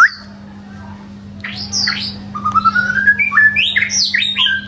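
White-rumped shama singing: after a short pause, a few clear whistles, then a quickening run of rising notes that builds into a loud, varied phrase of whistles and trills near the end. The song is ear-piercingly loud.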